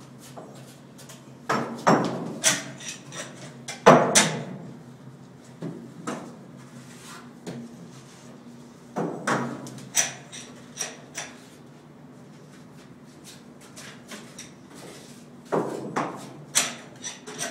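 Irregular knocks and clattering impacts, coming in a few short clusters, over a steady low hum.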